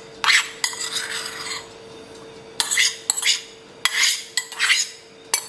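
Metal spoon scraping and clinking against a ceramic bowl in about five short bouts of strokes, scooping out rice.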